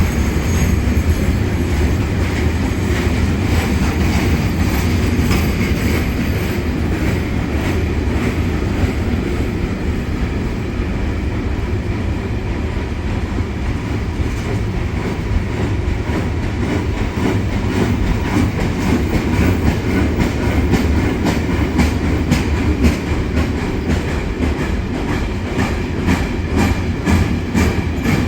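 Freight train rolling past, its wagon wheels clacking over the rail joints with a steady rumble. The clacks come faster and sharper near the end.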